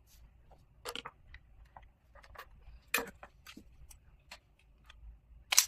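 Irregular clicks and taps as a roller head is handled and fitted onto the handpiece of a rotating-roller body-contouring machine, with two sharper clicks, one about three seconds in and one near the end.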